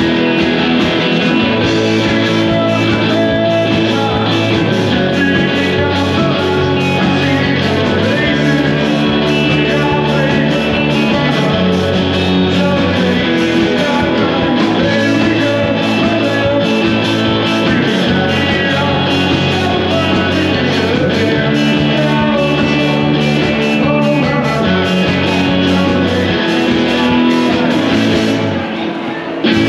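Live rock band playing: electric guitar, bass and drums on a steady beat. The music dips briefly just before the end.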